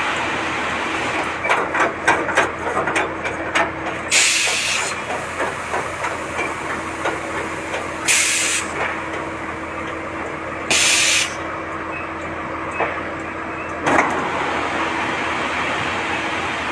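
Concrete batching plant's aggregate belt conveyor running with a steady mechanical drone and hum. A quick string of rattles and knocks starts about a second in, three short hisses of compressed air come from the hopper's pneumatic gate cylinders, and a single knock comes near the end.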